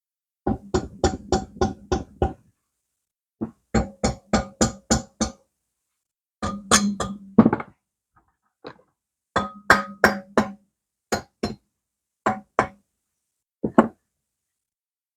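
Quick runs of sharp metallic taps, five or six at a time at about four or five a second, each strike ringing briefly, with short pauses between the runs.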